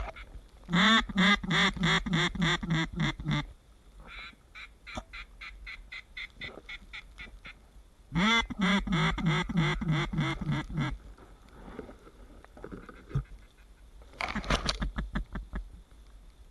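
Duck quacking in a mallard-style descending series: a loud run of about a dozen quacks falling in pitch, a second similar run about eight seconds in, and a shorter, fainter run near the end.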